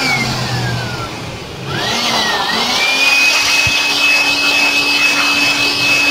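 Air blower blowing dust out of a pleated paper panel air filter: a loud rush of air with a high whine. The whine slides down and the air eases just after the start, then climbs back up about two seconds in and runs steady.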